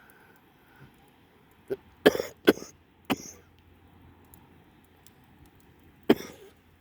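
A person's sneezing fit: a quick run of sharp sneezes from about two to three seconds in, then one more near the end.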